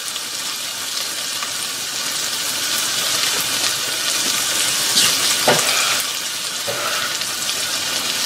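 Chopped onion, garlic and ginger sizzling steadily in hot oil in a Dutch oven, with a few brief sharper crackles about five seconds in.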